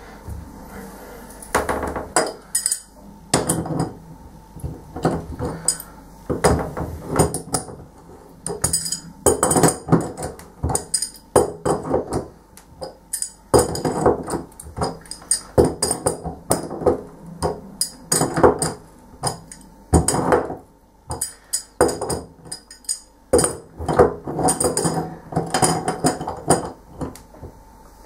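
Adjustable spanner working the brass headgear of a chrome bath tap, in irregular metallic clicks, knocks and clinks, some with a short ring, as the tap is put back together.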